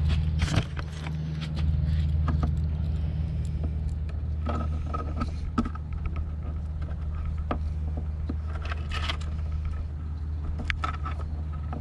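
Small 12 V electric water pump running steadily with a low hum, pushing water through an RC boat's cooling line, with scattered clicks and scrapes of hands handling the boat.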